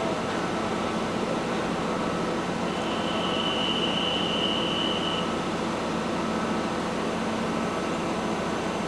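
Steady mechanical drone of heavy machinery running. A high, steady tone sounds for about two and a half seconds, starting about three seconds in.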